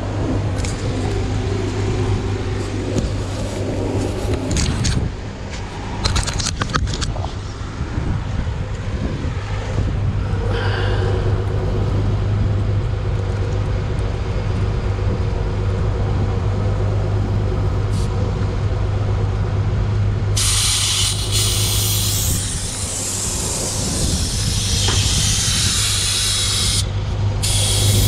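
Air hissing out of a car tyre's valve stem through a tyre deflator gauge. The hiss starts about two-thirds of the way through and breaks off briefly near the end, over a steady low hum.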